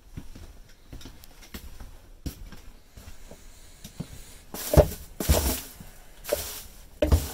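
Footsteps and handling noises inside a small camper: light scattered knocks at first, then several loud scuffing, rustling bursts in the last few seconds.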